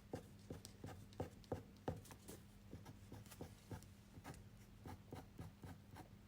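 Fineliner pen drawing quick short strokes on paper, each a faint scratchy tick, about three a second.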